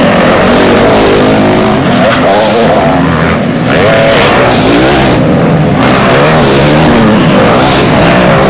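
Several motocross bikes' engines revving hard as they pass close one after another through a dirt corner. Their pitch keeps rising and falling as the riders open and close the throttle and shift.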